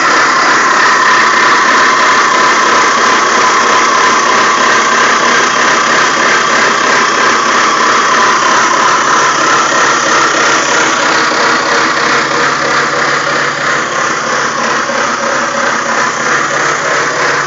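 BMW E46 engine running with a steady, loud grinding and squealing noise over the engine hum, easing somewhat in the second half. The owner suspects a worn alternator bearing; the belt and pulleys are recently replaced.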